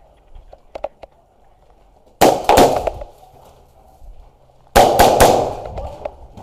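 Airsoft gun firing two short bursts of three or four quick shots each, about two and a half seconds apart.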